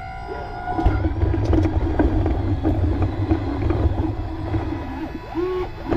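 Radio-controlled model construction machines working. An electric motor whine holds steady for about the first second, then gives way to a louder low rumble, and a short whine rises in pitch and holds near the end.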